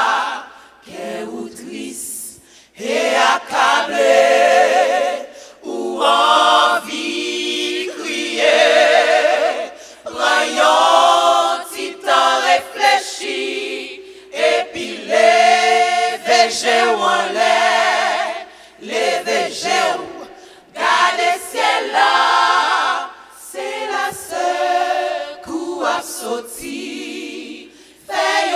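Women's gospel choir singing together, phrase after phrase with short breaks between them.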